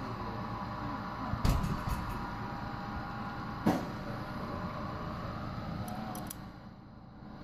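HO scale model train running on a layout: a steady hum and rumble, broken by two sharp knocks about two seconds apart and a few light clicks. The sound drops away near the end.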